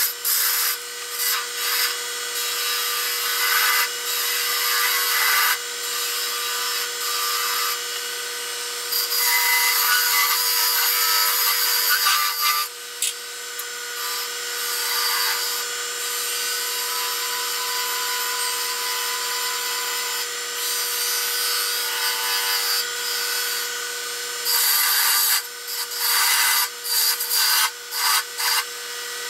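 Turning chisel cutting a small spindle on a running wood lathe, a hissing, rasping cut that starts and stops in short strokes, with frequent brief breaks near the end. A steady motor hum runs beneath it.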